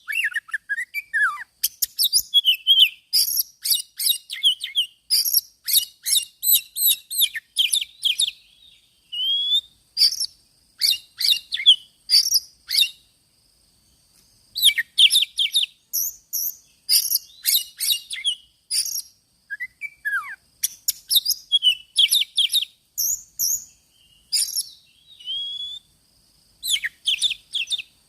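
Oriental magpie-robin calling: rapid strings of chirps, scratchy notes and short gliding whistles in bursts, with brief pauses between them.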